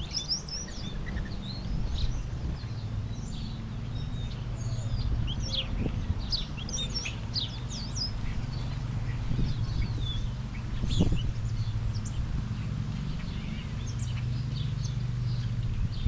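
Many small birds chirping in quick, short, overlapping notes, over a steady low background rumble.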